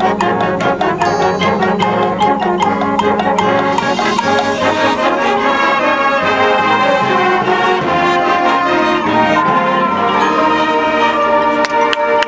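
High school marching band playing: brass sustaining full chords over percussion, with sharp percussion strokes in the first couple of seconds.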